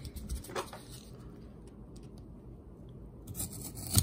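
Hands handling a small tape-wrapped cardboard package: light rustling and a few soft knocks, with a short run of clicks and one sharp click near the end.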